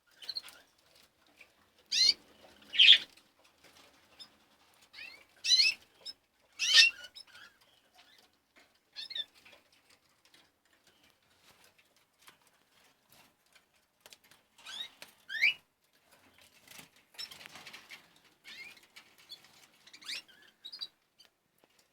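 Domestic canaries giving short, sweeping high chirps in scattered bursts with quiet gaps between, along with fluttering wings and light rustling.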